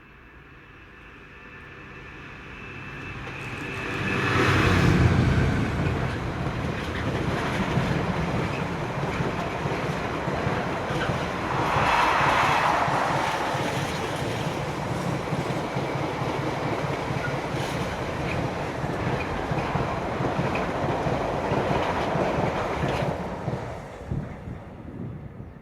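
A train passing on the main line. It builds up over about four seconds and is loudest about five seconds in as the front goes by, then the following vehicles rumble and clatter past steadily for nearly twenty seconds before it fades near the end.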